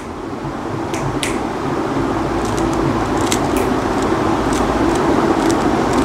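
A Rubik's cube being twisted right next to a clip-on microphone: a steady scraping plastic rustle that slowly grows louder, with sharp clicks every second or so as the layers snap round.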